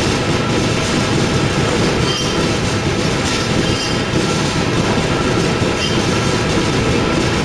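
Industrial coil upender turning its drum with a steel coil clamped inside: a steady, loud mechanical rumble and clatter, with a few brief faint squeaks.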